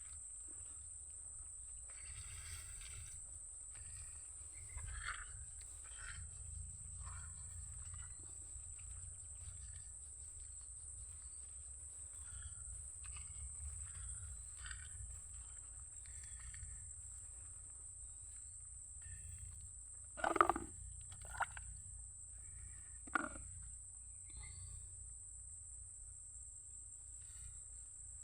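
A steady high-pitched drone of crickets or other insects over a low rumble, with scattered faint ticks and three short, louder sounds about twenty to twenty-three seconds in.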